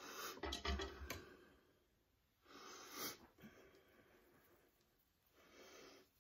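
Soft rustling and brushing of a scarf fabric head wrap being tugged down and adjusted by hand, loudest with a few small knocks in the first second, then in two softer spells.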